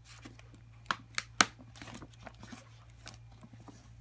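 Paper gift bag crinkling and rustling as hands reach into it, with a few sharp crackles in quick succession about a second in.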